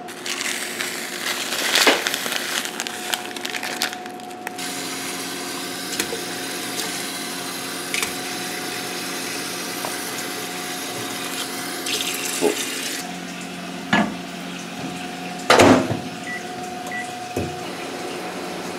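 Kitchen faucet running into a stainless steel sink for several seconds, over a steady hum, with clinks and knocks of dishes; a sharp knock a few seconds before the end is the loudest sound.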